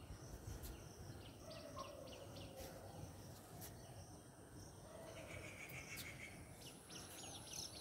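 Faint outdoor ambience with distant birds chirping: several short runs of quick, high chirps and trills over a low background hum.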